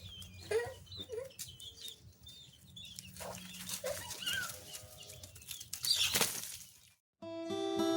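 Bantam roosters making short clucking calls, with a rustle of flapping wings about six seconds in. Just before the end, strummed acoustic guitar music starts.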